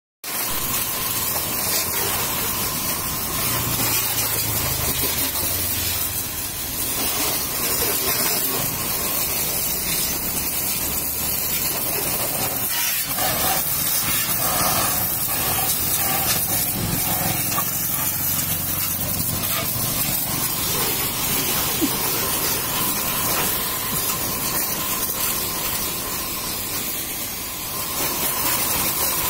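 High-pressure water jet spraying onto a motorcycle's engine and frame: a steady hiss of spray with water spattering off the metal, and a faint steady whine underneath.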